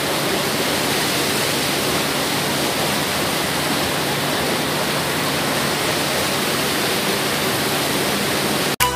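Hot-spring water cascading over rocks into a sulfur-green pool: a steady rushing of falling water. Electronic music cuts in abruptly at the very end.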